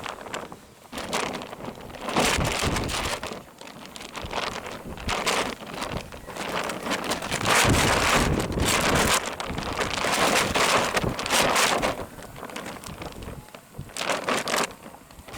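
Sea waves washing up the beach in repeated hissing surges a few seconds apart, with wind on the microphone.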